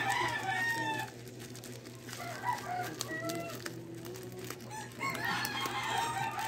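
A rooster crowing: one call at the start and a longer one from about five seconds in, with shorter calls in between.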